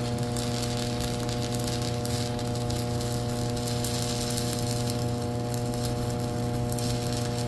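Shielded metal arc (stick) welding with a small 120 A inverter welder at 60 amps, electrode positive, burning a 6013 rod: the arc gives a steady crackling sizzle over a steady low hum.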